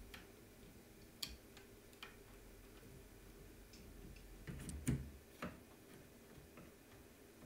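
Sparse faint clicks and taps of small metal parts being handled as a 3D printer's Z-axis lead screw and coupler are fitted, with a louder cluster of knocks about five seconds in.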